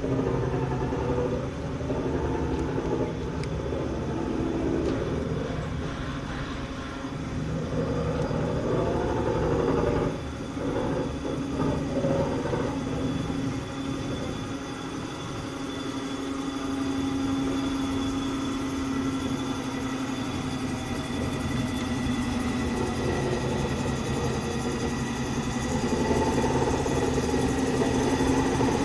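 Steam locomotive D51 498 being turned on a turntable: a steady mechanical hum with hiss and faint whining tones as the turntable rotates with the engine on it.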